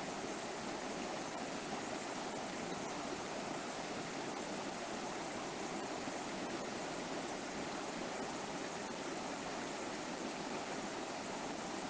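River water flowing and rushing over rocks, a steady even rush.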